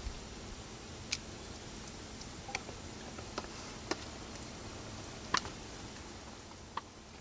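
Quiet background hiss with about six scattered sharp clicks, the loudest a little past five seconds in.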